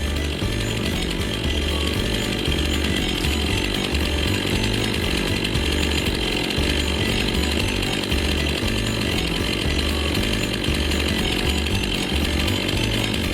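Chainsaw running steadily at high revs, bucking a log into firewood rounds.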